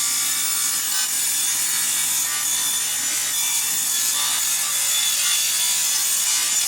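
Table saw ripping a wooden board along its length: the blade cutting through the wood makes a steady, unbroken sawing noise.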